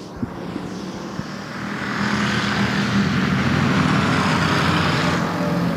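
A pack of dirt-track stock cars racing on a clay oval. Their engines swell to full volume about a second and a half in, hold there, and ease off slightly near the end as the pack passes.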